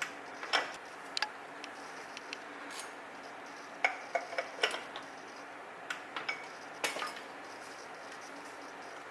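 Scattered sharp metallic clicks and clinks of a torque wrench and socket working the inner wheel-bearing nut on a Toyota front axle hub while the bearing preload is set. They come in small clusters through the first seven seconds or so.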